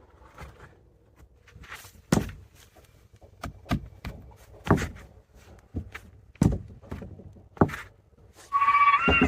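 Hammer blows driving nails into wooden fence boards: a run of irregular knocks, four of them much louder than the rest. Near the end, a brief high-pitched call.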